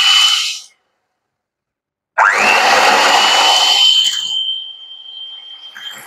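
Electric hand mixer running, its beaters churning egg yolks and granulated sugar in a glass bowl, with a steady high motor whine over the churning. It stops abruptly under a second in, and after a gap of silence starts again with a whine that rises as the motor spins up. About four seconds in it grows much quieter while the whine carries on.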